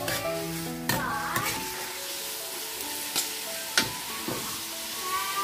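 Duck offal sizzling as it is stir-fried in a steel wok, with a metal utensil scraping and clinking against the pan about five times.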